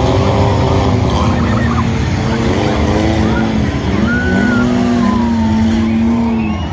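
Engines of several passenger cars revving and running hard together as they race round a dirt track. Their pitches rise and fall over a heavy rumble, and the sound eases off a little near the end.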